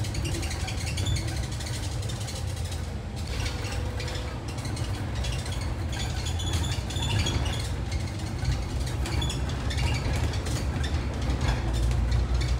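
Bus cabin sound on the move: a steady low engine and road rumble with light rattles and clicks from the bus interior, growing a little louder near the end.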